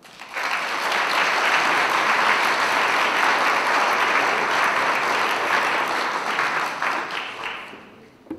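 Audience applauding, starting just after the start, holding steady for several seconds and dying away near the end.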